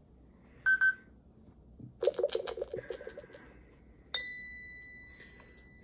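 Electronic lie detector game toy giving its reading: two short beeps, then about a second and a half of rapid electronic ticking, then a single ringing chime about four seconds in that fades slowly. The chime comes with the green truth display, so the answer is read as the truth.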